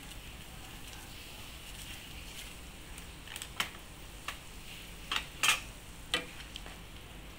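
Pot of moong dal with moringa leaves simmering, with a steady bubbling hiss. From about three seconds in, a wooden spoon knocks a few times against the pot as the dal is stirred, loudest about five and a half seconds in.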